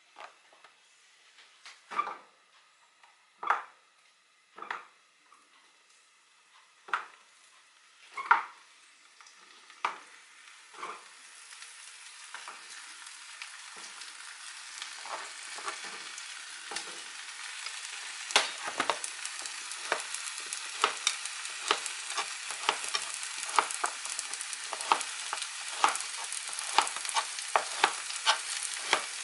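Kitchen knife slicing a large zucchini on a cutting board: scattered sharp knocks for the first ten seconds or so, then quicker strokes, about two a second, from about 18 seconds in. From about 11 seconds in, a frying sizzle rises and then holds steady underneath the cutting.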